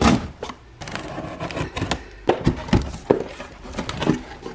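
Scissors cutting the packing tape on a cardboard box and the cardboard flaps being pulled open: irregular scraping, rustling and sharp taps and knocks, loudest at the start.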